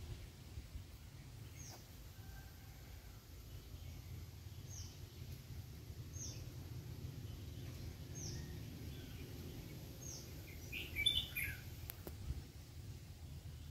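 A bird repeating a short, high, falling call every second or two, with a louder burst of chirps about eleven seconds in, over a low steady rumble of outdoor background noise.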